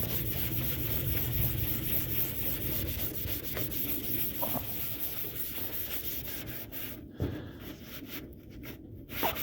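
Steel-wool soap pad scrubbing rust off stainless steel in rapid scraping strokes, pausing briefly twice near the end.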